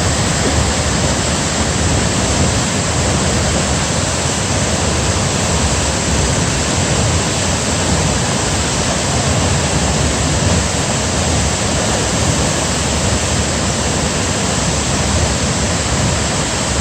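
Waterfall, falling water rushing in a loud, steady, unbroken noise.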